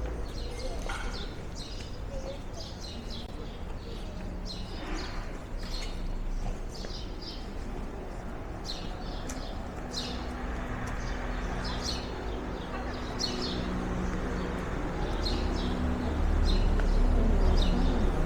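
Street ambience of small birds chirping again and again, with a low steady hum coming in about halfway through and growing louder near the end.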